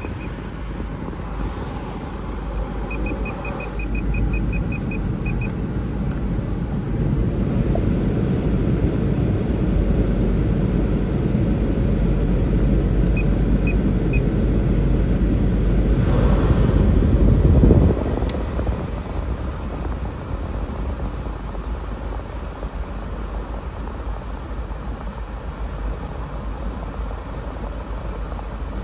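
Idling Land Rover Discovery with its climate-control blower rushing through the vents. The rush swells gradually and drops off suddenly about 18 seconds in. Short runs of quick high beeps come near the start and again around 13 seconds.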